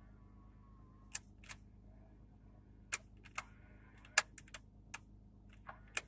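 Power side mirror being adjusted: a series of about ten sharp, irregular clicks, with a faint motor whine at times as the mirror glass tilts.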